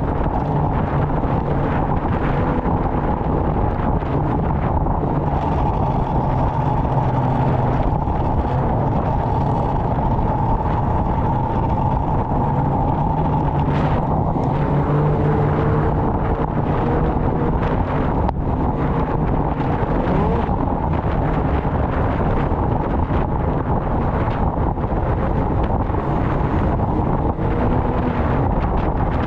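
Snowmobile engine running steadily under way, its note holding at an even speed.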